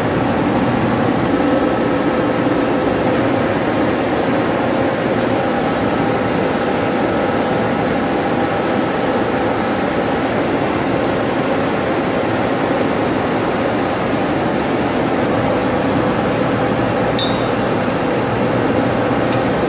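Steady machinery noise in a pump room: an even rushing sound with a low hum and faint steady tones, unchanging throughout.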